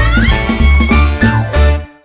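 Background music with a steady, bouncing bass beat and a lead line that slides up in pitch near the start; it stops abruptly near the end.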